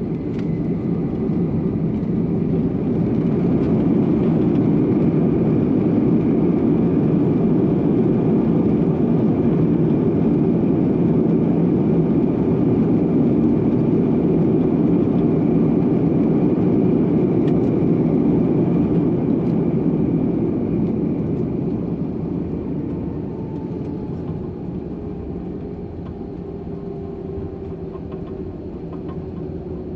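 Airbus A321 engine and airflow noise heard inside the cabin. It swells to a loud steady rumble a couple of seconds in and holds for about fifteen seconds, then eases off with a falling whine near the end, as the engines spool up and down on the landing rollout.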